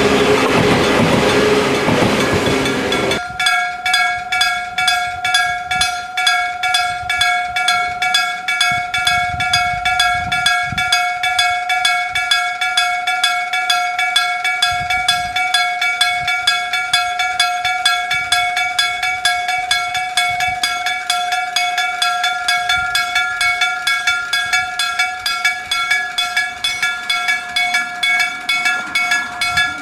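A train runs past for the first three seconds or so. The noise cuts off suddenly, and a Japanese electric-bell (denshō-shiki) level-crossing warning bell rings on, its hammer striking the gong in rapid, even strokes with a steady ringing tone.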